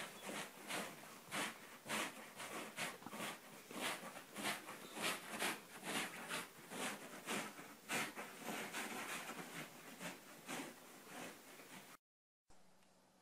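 Sleeping dog's quick, irregular snuffling huffs, about two to three a second, which stop abruptly about twelve seconds in.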